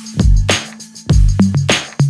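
Background electronic music with a steady beat: heavy kick drum, bass notes and crisp hi-hat ticks.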